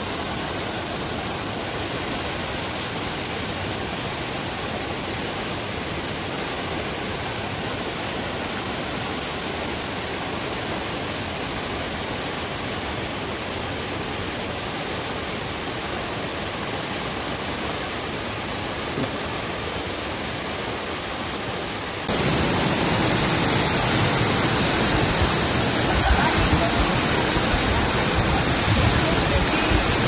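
Waterfall: a steady rushing roar of falling water. About two-thirds of the way through it jumps abruptly to a louder, hissier roar.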